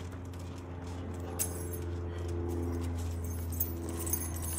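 Light clink of a bunch of keys about one and a half seconds in, with a few fainter metallic ticks near the end, over a steady low hum.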